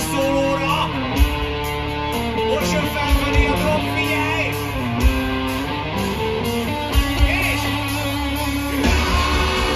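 Live rock band playing through a big outdoor PA, heard from the crowd: guitar chords and sustained notes over drum hits, with the band coming in fuller and louder near the end.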